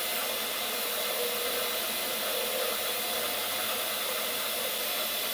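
Steady hiss of a compressed-air jet blowing chips off a milling cut, with the milling machine running a carbide end mill through a slot as a faint steady hum underneath.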